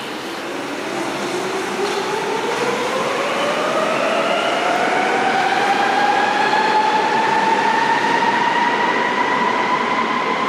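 Berlin U-Bahn train pulling out of an underground station: a motor whine climbs steadily in pitch as it gathers speed, over the rumble of the wheels, getting louder over the first few seconds.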